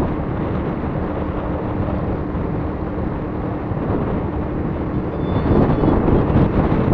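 Riding on a motorcycle: wind rushes over the microphone with the bike's engine running steadily underneath. The rush gets louder and rougher about five and a half seconds in.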